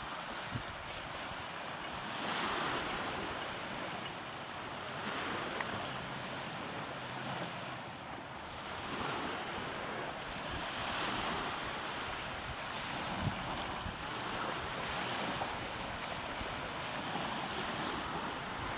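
Small sea waves washing over shore rocks and sand, the hiss swelling and easing every few seconds, with some wind on the microphone.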